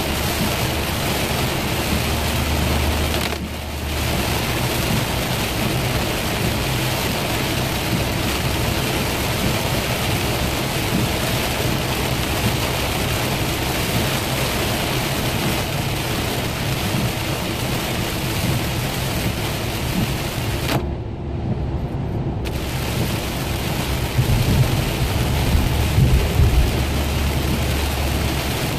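Heavy rain pelting a car's windshield with tyre and engine drone from inside the moving car. A deeper rumble swells near the end.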